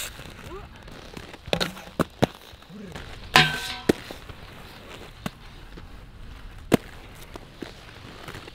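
Inline skate wheels rolling on concrete, with a series of sharp clacks from skates striking the ground and park obstacles. The loudest clack comes about a third of the way in and rings briefly.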